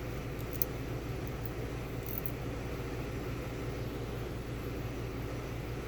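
Steady low background hum, with a few faint light clicks in the first couple of seconds.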